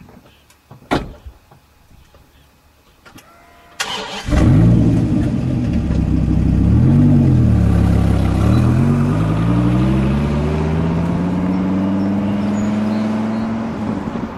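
Dodge Viper's V10 starting up about four seconds in after a few light clicks, revved once, then pulling away with the engine note climbing steadily before it drops and fades at the end.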